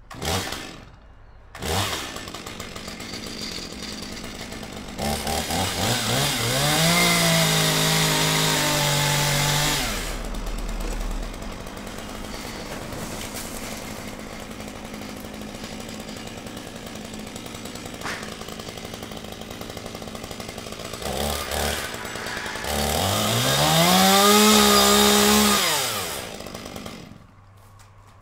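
Chainsaw engine catching after two sharp starts, idling, then revved up to full throttle twice with a rising whine, and shut off near the end.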